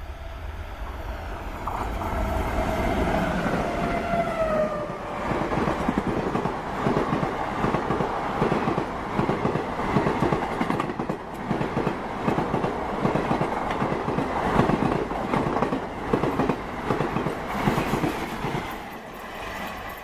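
Twin WDG3A ALCO diesel locomotives passing at speed with a passenger train. About two seconds in, a horn sounds and drops in pitch as the locomotives go by. The coaches' wheels then clatter in a steady rhythm over the rail joints until the train moves off near the end.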